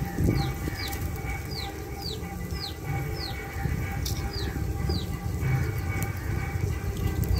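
A bird repeating a short, falling chirp about twice a second, over a low steady rumble.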